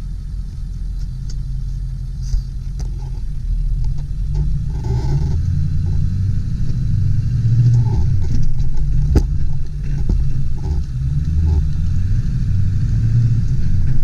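1999 Ford F-250 Super Duty's 7.3-litre turbo diesel V8 pulling the truck along in four-wheel low, a low rumble whose note rises and falls with the throttle and grows louder about four seconds in. A single sharp click about nine seconds in.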